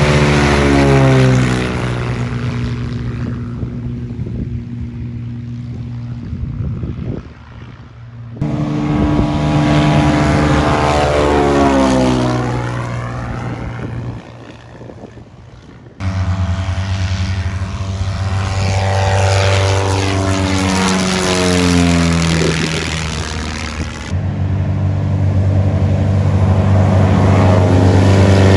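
Light propeller airplanes' piston engines running loud and passing by one after another, the pitch falling as each goes past. The sound breaks off abruptly and starts again from a new plane about every eight seconds.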